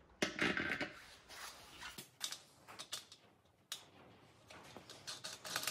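Handling noise of a metal dent-puller lever being fitted onto a hot-glued pulling tab on a motorcycle fuel tank: a brief rustle just after the start, then scattered light clicks and taps.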